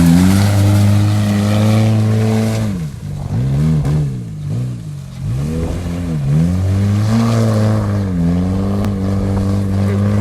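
Chevy Cavalier's engine revving hard. Its pitch holds high, then drops and climbs again several times, as the revs fall and pick back up.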